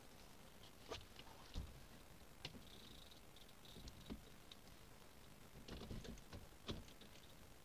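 Faint, scattered light clicks and taps as the rider shifts about in the cockpit of a Coroplast velomobile shell, with a brief high squeak about three seconds in.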